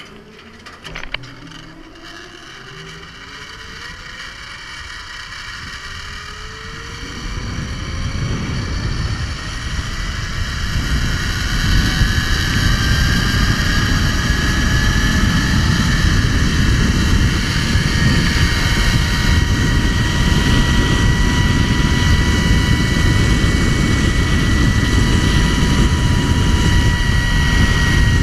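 Zip line trolley running down the steel cable: its whine rises in pitch as the rider picks up speed, then holds steady. Wind rushing over the microphone builds with speed until it is loud.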